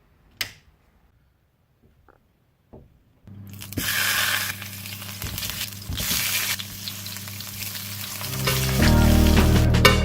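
A single click near the start, then a steady hiss over a low hum from about three seconds in. Music with sustained notes comes in near the end.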